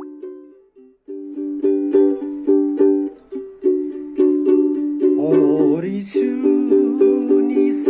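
Ukulele strummed in a steady rhythm of chords, stopping briefly about a second in. A singing voice comes in over it about five seconds in.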